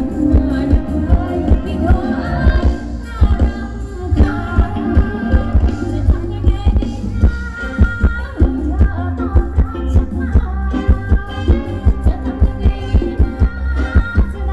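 Thai ramwong (Phetchaburi circle-dance) music played by a live band, with a steady, heavy drum beat and singing over it.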